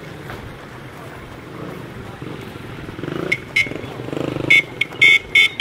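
Short, high-pitched vehicle horn beeps, about seven toots, starting about three seconds in and coming quicker near the end. Underneath is the steady hum of motorcycle and road-traffic engines.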